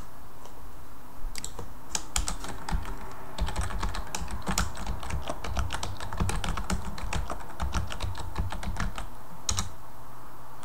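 Typing on a computer keyboard: a quick run of key clicks that starts about two seconds in and pauses briefly near the end.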